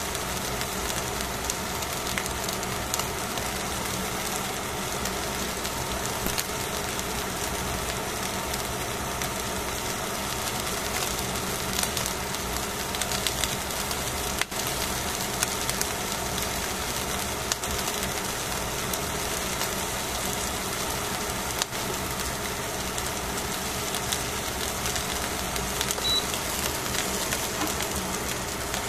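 Fish fillets sizzling steadily on aluminium foil as they cook, with occasional small crackles and a steady low hum underneath.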